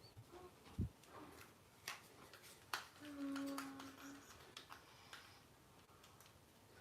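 Faint scattered clicks and taps, with one duller knock about a second in and a low hum lasting about a second around three seconds in.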